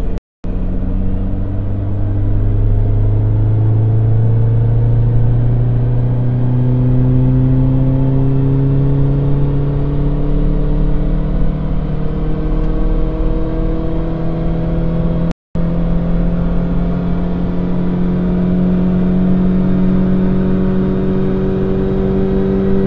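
Mini Cooper R56's 1.6-litre naturally aspirated petrol four-cylinder pulling at full throttle on a chassis dyno, its pitch rising slowly and steadily as the revs climb through a stock-tune baseline power run. The sound cuts out for a moment twice, just after the start and about 15 seconds in.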